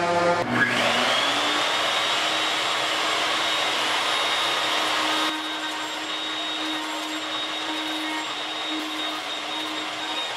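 A router-table motor starts up with a whine that climbs in pitch and levels off within about a second, then runs steadily with a dense hiss while a wooden drum hoop is sanded on it. About halfway through, the sound eases a little.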